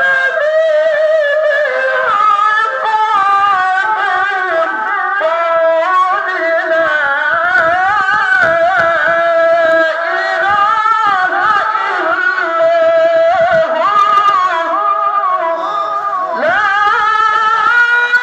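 Qur'an recitation in melodic tilawah style: a solo male voice chanting in maqam Rast at a high pitch level, with long held, ornamented notes that glide up and down. A new phrase starts about a second and a half before the end, rising to a long held note.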